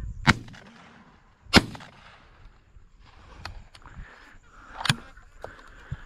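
Shotgun fired twice at close range, two sharp loud shots a little over a second apart, followed by fainter shots farther off a few seconds later.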